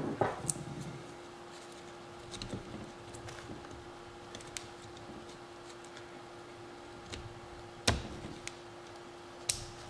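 Scattered small metallic clicks and ticks of a screwdriver and a wrist pin circlip working against a two-stroke piston as the clip is pushed into its groove, the sharpest click about eight seconds in. A steady faint hum runs underneath.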